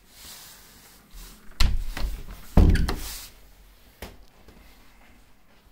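Interior door being handled as someone passes through it: two heavy thumps about a second apart, the second the loudest, then a sharp click.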